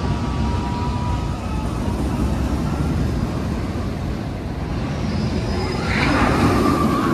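Steel roller coaster train running on its track, a steady rumble that swells louder about six seconds in.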